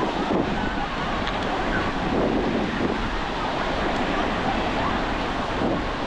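Beach ambience: steady surf washing on the shore, with wind buffeting the microphone and faint distant voices of beachgoers.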